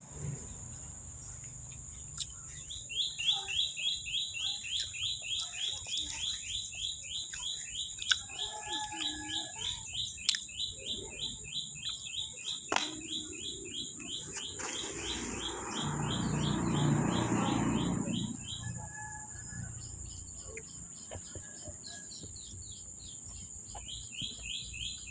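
Outdoor ambience: a steady high insect drone, with a bird chirping over and over at about three chirps a second, stopping for a few seconds and starting again near the end. A rushing noise swells and fades about two-thirds of the way through, and there are a few sharp clicks.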